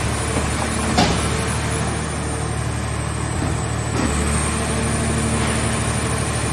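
Hydraulic car baler running with a steady low engine or pump hum, with a sharp knock about a second in and another about four seconds in.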